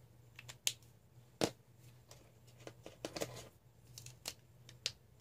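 Plastic markers being handled: a handful of sharp clicks from caps being snapped on and off, the loudest about a second and a half in, with light rustling between.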